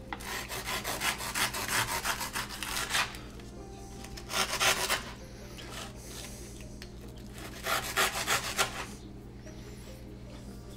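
A knife sawing through a dry, crunchy freeze-dried baked crescent roll on a cutting board, rapid back-and-forth scraping strokes with crumbling. It comes in three bouts, the first and longest lasting about three seconds.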